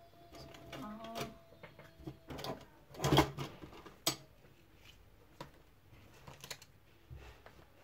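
Cardstock pieces and craft tools handled on a plastic cutting mat: scattered taps, clicks and sliding card, with one louder knock about three seconds in and a sharp click just after.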